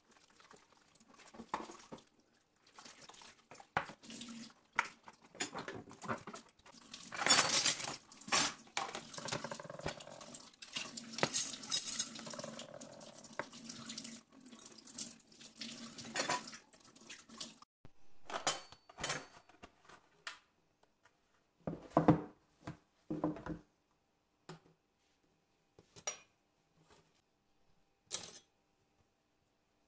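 Water running from a kitchen tap while metal cutlery clatters and a plastic cutlery tray is handled, for about the first half. After the water stops, separate clinks of cutlery and knocks of the plastic tray being set down, with short pauses between them.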